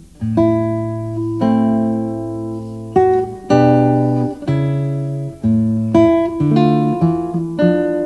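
Background music: a guitar plays picked notes and chords, each struck sharply and left to ring and fade before the next, about one every second.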